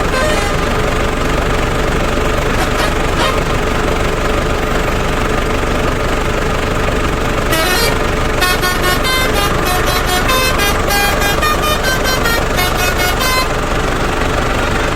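Steady truck engine noise. From about halfway in until near the end, a telolet 'basuri' multi-tone melody horn plays a quick tune of many short, changing notes.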